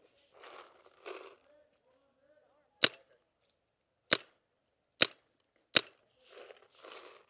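Paintball marker firing four single shots, spaced roughly a second apart, each a sharp crack.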